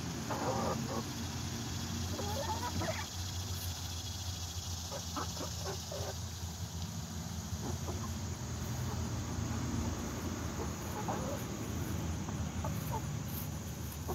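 Flock of young chickens clucking in short, scattered calls as they peck at feed on the grass.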